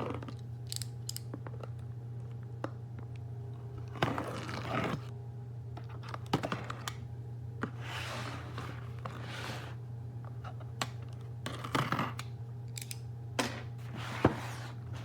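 Handling noises: a series of short rustles, scrapes and clicks, most likely the sander and its packaging being handled, over a steady low hum.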